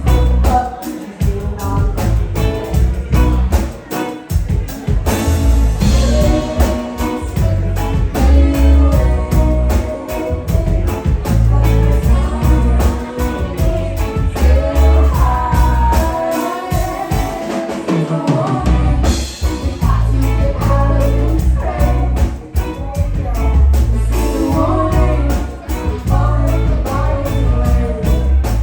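A live rock band playing, with drum kit, electric bass and guitar under sung vocals. The bass and low drums drop out for a couple of seconds a little past halfway, then come back in.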